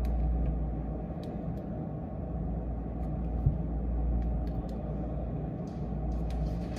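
Steady low rumble of road traffic, with faint light clicks scattered through it.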